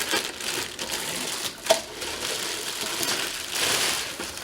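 Rustling and light clattering of packaging and plastic cooker parts being handled while unpacking a Ninja Foodi multi-cooker, with one sharp knock about 1.7 seconds in.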